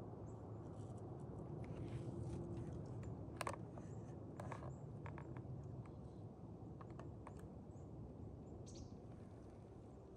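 Quiet woods with a steady low rumble, a few faint high bird chirps, and scattered light clicks and crackles, the sharpest about three and a half seconds in.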